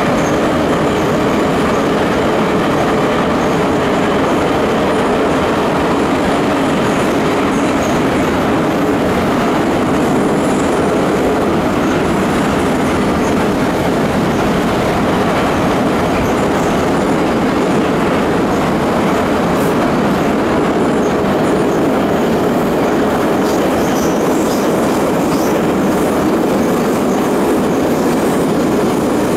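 Minsk metro train running through a tunnel, heard from inside the passenger car: a loud, steady running noise of the moving train that holds even throughout.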